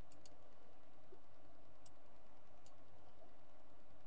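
A few faint computer mouse clicks over a steady low hum: a quick double click near the start, then single clicks about two and three seconds in.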